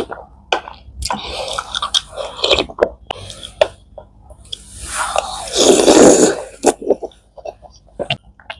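Close-miked chewing and wet mouth sounds of someone eating soft, syrupy Indian sweets, with irregular smacks and clicks. The sounds are loudest for about a second and a half past the middle.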